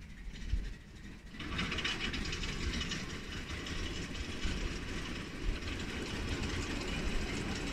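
Miniature ride-on railway locomotive running along the track toward the listener, drawing nearer. A low rumble of running gear on the rails comes first, then a dense hiss starts abruptly about a second in and carries on steadily.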